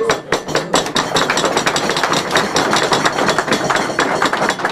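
Applause from people seated around a dinner table: many fast, dense claps and knocks at a steady level.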